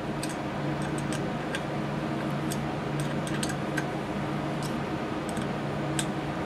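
Scattered light metallic clicks and taps of small hand tools and the compressor's metal head being handled while a set screw is tightened, over a steady low hum.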